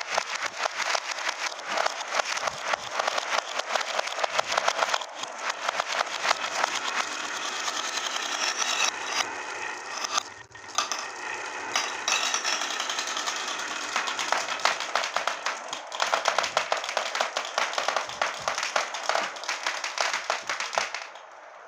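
A long stream of glass marbles rolling down a wooden wavy-groove marble-run slope: a dense, rapid clatter of glass clicking against glass and wood, breaking off briefly about halfway through.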